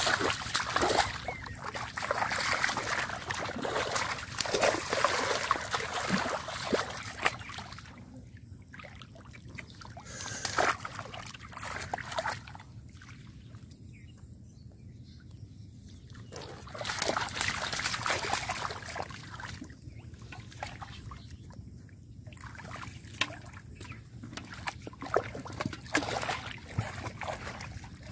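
Shallow water splashing and sloshing as hands grope through it and feet wade in the flooded grass, busiest for the first several seconds, quieter for a stretch in the middle, then splashing again.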